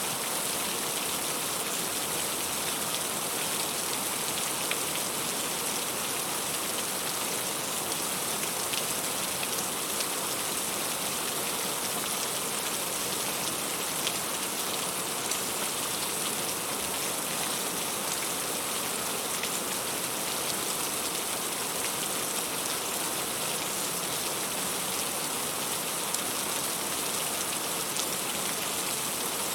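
Heavy rain falling steadily, with the patter of individual drops on leaves.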